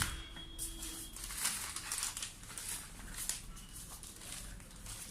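Packaging crinkling and rustling in irregular bursts as the monitor's accessories are handled out of the box, with a click right at the start.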